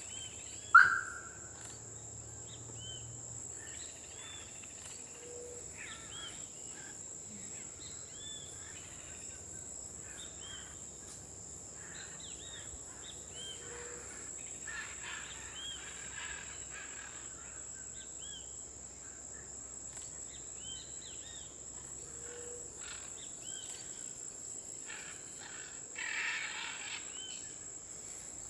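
Outdoor ambience of a steady high-pitched insect drone, with many short chirping bird calls scattered over it. There is a brief loud sharp sound just under a second in, and a louder rough burst of calls near the end.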